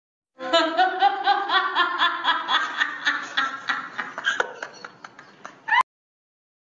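Rapid, rhythmic laughter, about four or five laughs a second, dying away over about five seconds. It ends in a brief rising squeak and a click.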